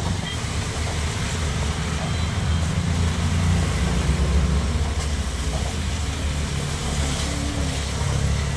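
Steady low rumble of motor-vehicle engines and road traffic.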